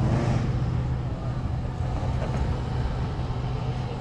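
Cars driving slowly past in a parade, their engines running with a steady low hum. A brief rush of tyre noise comes at the start as one passes close.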